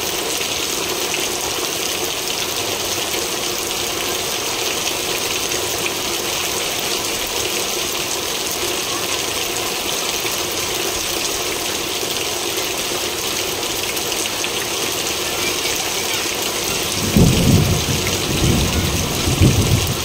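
Heavy rain pouring steadily onto corrugated roofs, with a loud low rumble of thunder near the end that swells several times over about three seconds.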